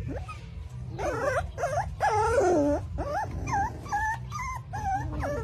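Young puppies whimpering and yelping: about a dozen short, high cries in quick succession, each rising and falling in pitch.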